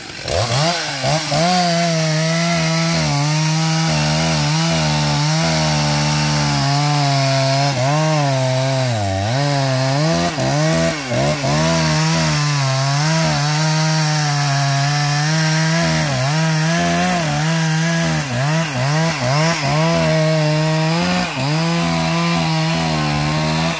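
Two-stroke chainsaw running at full throttle, cutting into a kapok tree trunk. Its pitch sags and recovers several times as the chain bites into the wood.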